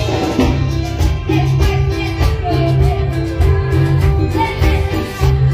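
A woman singing a Spanish-language Christian song live into a microphone through a PA loudspeaker, over amplified Latin-style accompaniment with a steady bass beat.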